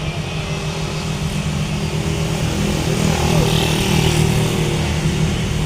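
Airliner jet engines running steadily, growing louder over the first few seconds as the plane readies for takeoff.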